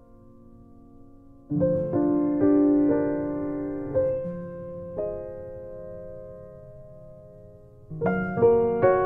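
Gentle piano background music: chords struck and left to fade. It is soft for the first second and a half, then a new chord comes in every second or so, with a fuller run of notes near the end.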